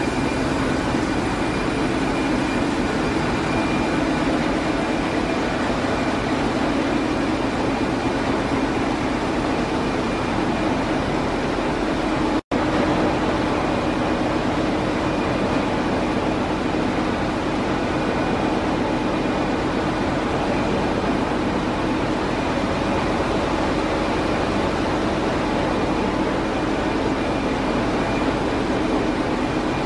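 Steady machinery din of a ship's engine room, with a continuous low drone and a few steady higher tones over it. The sound cuts out for an instant about twelve seconds in.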